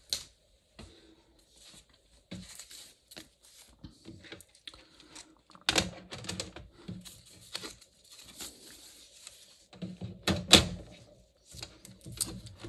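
Metal tins of colour pencils being picked up and moved across a desk: a run of knocks, clatters and rustles, with the loudest knock about ten and a half seconds in.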